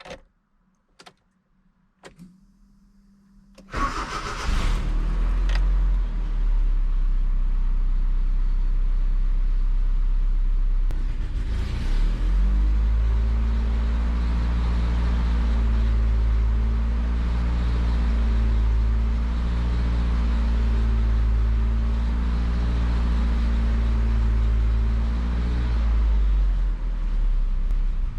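A few clicks and a short hum, then the 1988 Nissan D21's 2.4L Z24 four-cylinder engine starts about four seconds in. It settles into a rough, surging idle, its pitch rising and falling over and over, a symptom traced to a vacuum line fault.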